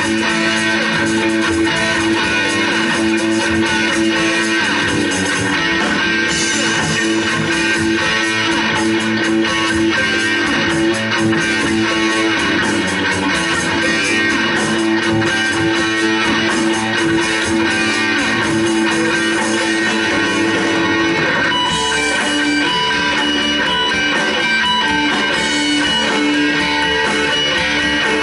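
Live instrumental rock trio playing: electric guitar, bass guitar and drums together in a dense, sustained passage, with a shift in the texture about three quarters of the way through.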